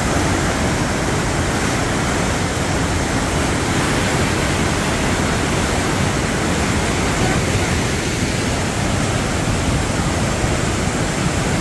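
Huka Falls: white water of the Waikato River rushing through a narrow rock gorge, a steady loud rushing noise without a break.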